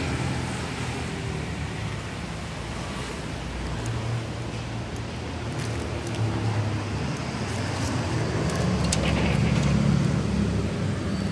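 Street traffic noise: motor vehicle engines running nearby, a low drone that grows louder in the second half.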